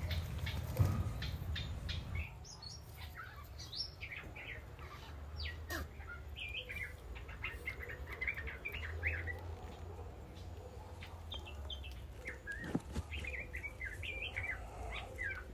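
Wild birds chirping and calling in quick, repeated short notes, with rustling and a knock or two from movement in the first couple of seconds.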